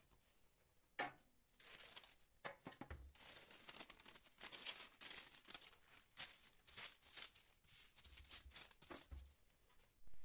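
Paper crinkling and rustling faintly in many short, irregular bursts, as it is handled and folded.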